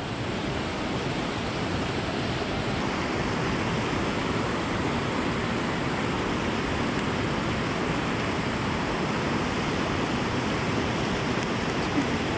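Steady rushing of a waterfall's whitewater pouring into a pool close by.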